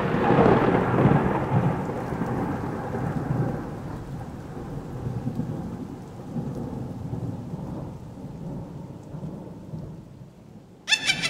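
A deep rolling noise that slowly fades over several seconds, over a steady hiss. Near the end a brief sound of several rising tones cuts in.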